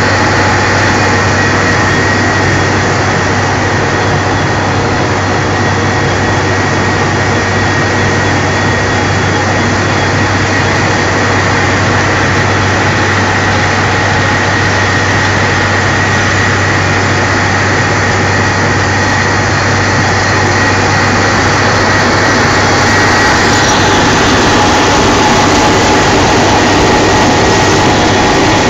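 Wirtgen 2100 DCR cold milling machine running at close range while milling: a loud, steady machine noise with a constant low hum and a high whine.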